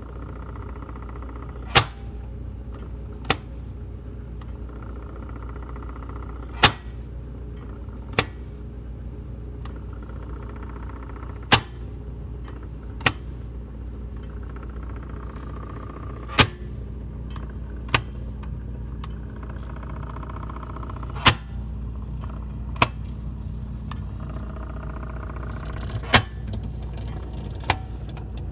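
Whirlpool side-by-side refrigerator knocking over its steady running hum. Sharp knocks come in pairs, a loud knock followed about a second and a half later by a softer one, and the pair repeats about every five seconds.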